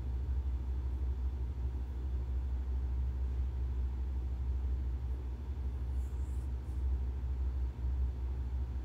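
Steady low rumble of café room noise, with a few faint ticks about six seconds in.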